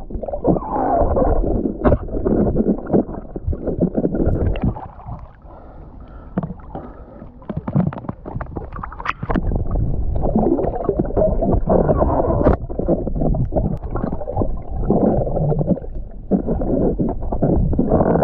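Muffled sloshing and gurgling of sea water around an action camera in or at the surface of shallow water, heard through its waterproof housing, with a few sharp knocks. It eases off for a couple of seconds about five seconds in.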